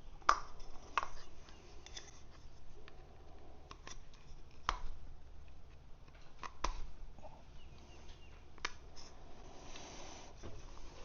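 Scattered sharp clicks and light knocks from hands working on the BMW N55 engine's plastic oil filter housing cap and its O-rings, with a short rustle near the end.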